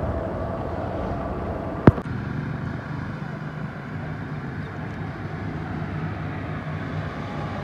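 Vehicle engine running steadily with a low, even hum, and one sharp click about two seconds in.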